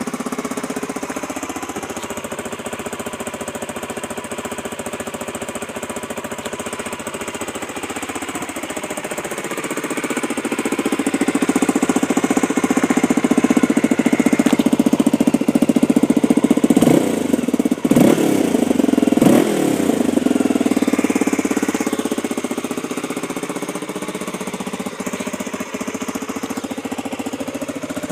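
Honda XR250L's air-cooled 249 cc single-cylinder four-stroke engine on its stock exhaust. It idles, is revved up slowly about nine seconds in and held at higher revs with three quick throttle blips, then settles back to idle.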